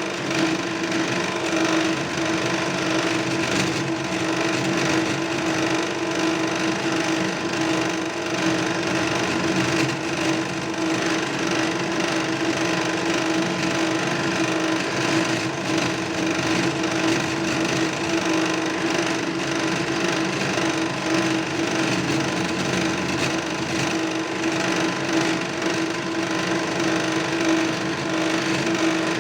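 A power tool running continuously, cutting or grinding, with a steady hum of constant pitch throughout.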